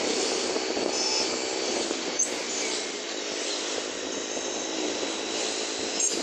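Motor scooter in motion: a steady engine hum under road and wind noise on the microphone, with a brief click about two seconds in.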